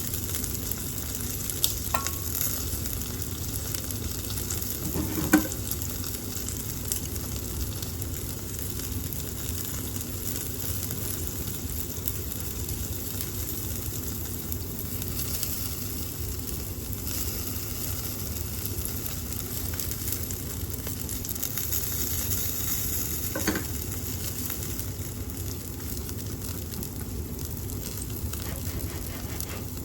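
Skewered pork and onion sizzling steadily on an electric shichirin grill. A few sharp clicks break in, the loudest about five seconds in.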